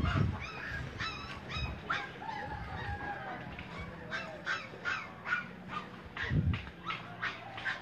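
Short animal calls repeated in quick runs of several a second, with a low bump near the start and another about six seconds in.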